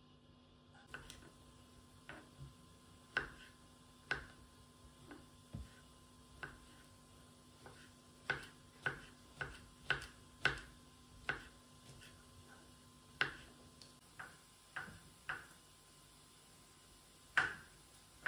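Kitchen utensils clicking and tapping irregularly, about twenty sharp taps, some ringing briefly.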